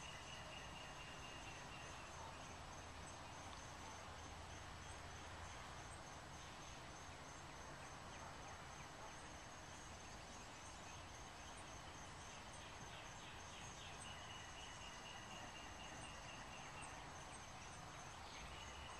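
Faint outdoor ambience: steady high-pitched trilling, plus a rapid pulsing trill that comes and goes, at the start, about two-thirds of the way through and again near the end.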